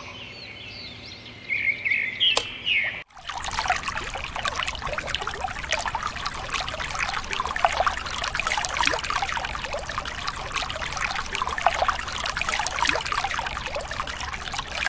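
A few bird chirps, then, from about three seconds in, a steady stream of water trickling and splashing from a thin pipe into a small plastic watering can, filling it as a mini electric water pump pushes water through.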